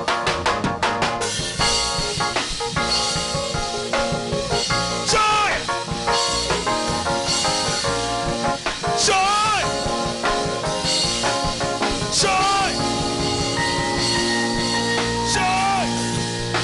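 Live worship band music with a drum kit, over which a voice or lead instrument sings a few long notes that slide up and down.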